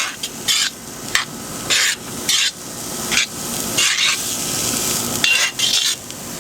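Cauliflower rice sizzling in a cast iron wok while a utensil scrapes and stirs it, in repeated strokes about every half to three-quarters of a second over a steady frying hiss.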